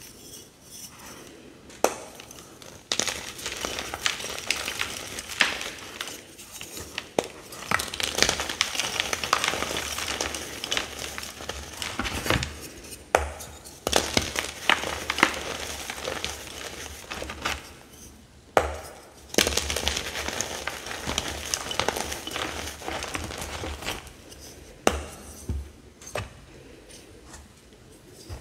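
Reformed gym chalk blocks, shaped like smooth stones, crushed by hand: a dry crunching and crumbling with sharp cracks as the blocks break apart into powder. It comes in three long bouts separated by short quieter pauses.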